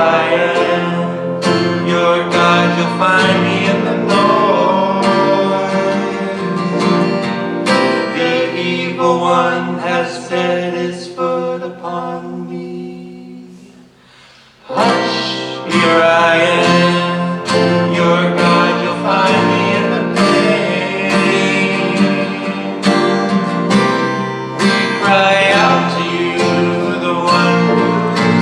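A song sung to a strummed acoustic guitar. About halfway through it dies away almost to nothing, then the guitar and singing start again.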